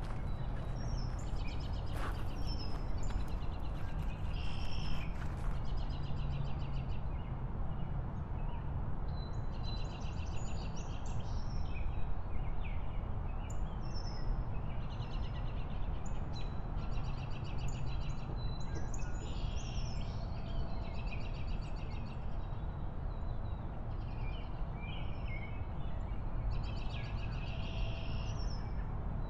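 Birds chirping and trilling again and again in short, rapid phrases, over a steady low rumble of wind and riding noise from a moving bike.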